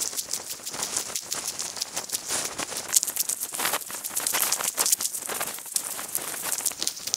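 Footsteps crunching on a gravel track, an irregular stream of crackly crunches.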